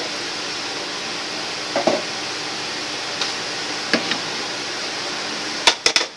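Steady hiss of a pot of chicken simmering on the stove, with a few light clicks and, near the end, a quick run of three sharp clicks.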